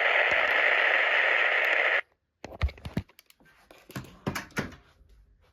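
A burst of radio static, an even hiss, cuts off abruptly about two seconds in. A scattering of sharp clicks and knocks follows.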